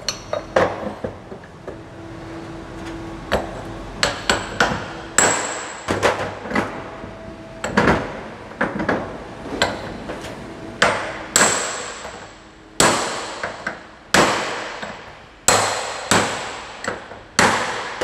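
Repeated hammer blows on the steel yoke of a driveshaft held in a vise, knocking the bearing cups out of a worn universal joint. The sharp metallic strikes come irregularly, about one a second, and each rings briefly.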